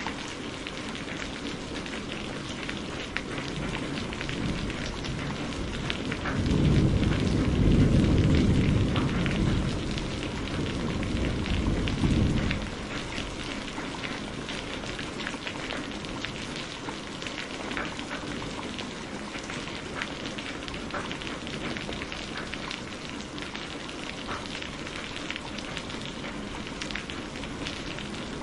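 Steady rain falling and pattering on surfaces. A low roll of thunder rumbles in about six seconds in and dies away about twelve seconds in.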